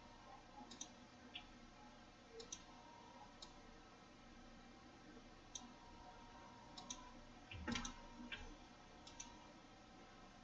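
Computer mouse clicking: about ten scattered single clicks over near-silent room tone, one of them louder with a dull knock about three-quarters through.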